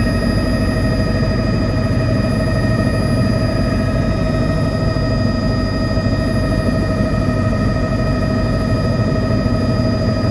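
Helicopter cabin noise in flight, heard from inside the cockpit: a steady engine whine over dense low rotor and engine rumble.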